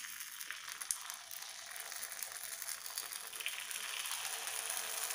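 Faint, steady sizzle of hot oil in a paniyaram pan as pearl millet batter is ladled into its wells, growing slightly louder about three seconds in.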